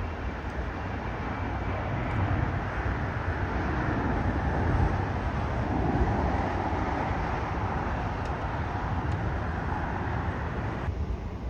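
Jet engines of a narrow-body airliner at takeoff power: a steady, broad roar that swells in the middle as the aircraft climbs away.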